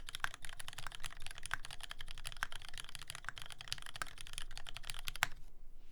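Fast typing on a TX84v2 custom mechanical keyboard with lubed Retooled Black linear switches on 70 g springs, a brass plate and GMK keycaps: a dense run of keystrokes with one louder stroke about five seconds in, then the typing stops just before the end.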